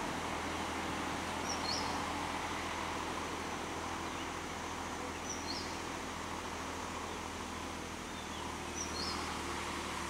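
Diesel farm tractor engine running steadily, with a bird's short high call three times, about three and a half seconds apart.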